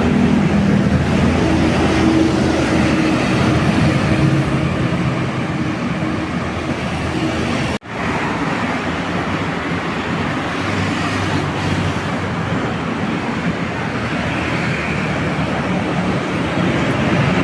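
Road traffic with buses passing: engine and tyre noise, steady and loud, with a sudden brief dropout about eight seconds in.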